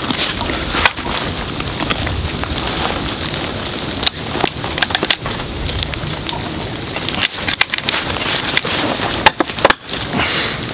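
Canvas yurt wall being handled against a wooden door-frame post: rustling fabric with scattered clicks and knocks as a grommet and washer are fitted over a bolt, in clusters about four seconds in and again near the end.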